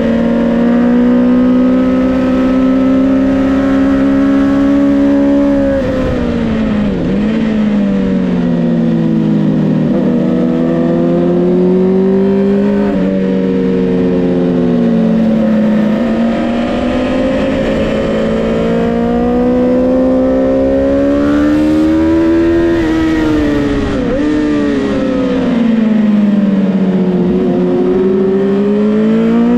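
Honda CBR650R's inline-four engine at racing revs, heard on board. It holds a high, steady pitch, drops sharply about six seconds in as the rider brakes and downshifts, then rises and falls again as it is accelerated and shifted through the gears, with another long drop past the twenty-second mark before it climbs again near the end.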